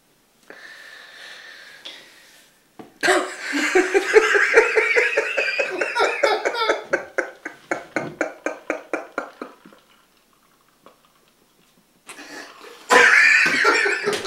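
High-pitched laughter: a long laugh whose quick pulses slow down and trail off, then a second burst of laughing near the end.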